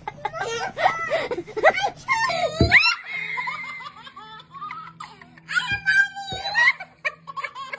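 People laughing, then a young child's giggles and squeals, over background music.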